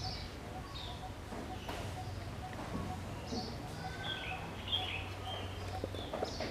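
Birds chirping: short high calls scattered through, with several close together about four to five seconds in, over a faint steady low hum.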